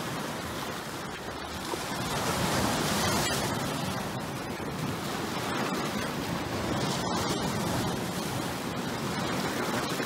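Ocean surf breaking and washing over rocks: a steady rush of water that swells a little about two to three seconds in.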